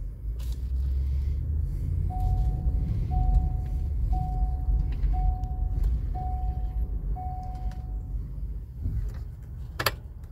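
Ford F250 pickup engine idling, heard from inside the cab as a steady low rumble. A dashboard warning chime sounds six times, about once a second, and a sharp click comes near the end.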